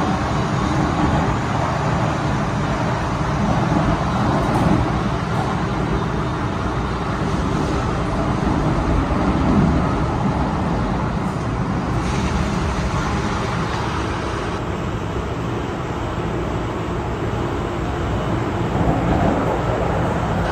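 Hong Kong MTR M-Train electric multiple unit running at speed through a tunnel, heard from inside a passenger car: a steady rumble of wheels on rail and running gear, with a hiss above it that changes a little about twelve seconds in.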